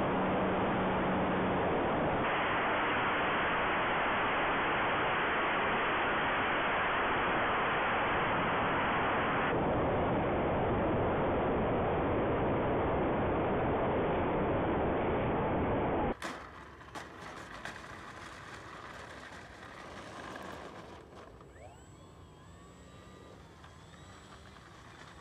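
Loud, steady rush of wind and propeller noise picked up by a camera mounted on an electric RC plane in flight, its brushless motor and prop running. About two-thirds of the way through it cuts off suddenly to a much quieter outdoor sound with faint whines that rise and fall.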